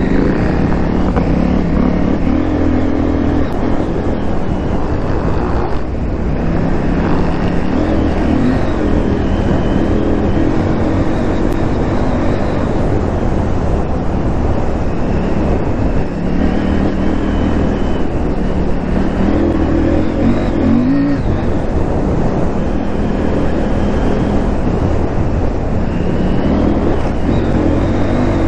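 KTM 890 Adventure R's parallel-twin engine running under way, its note rising and falling several times with the throttle, over steady riding noise.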